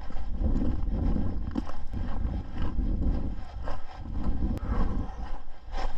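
Wind buffeting the camera's microphone in a steady low rumble while a hiker walks, with regular footsteps on the trail under a second apart.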